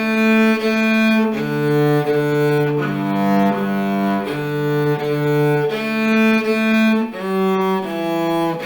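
Cello bowed in a steady run of even, held notes, crossing back and forth between two neighbouring strings: a beginner string-change exercise, the bow and right arm rolling between strings.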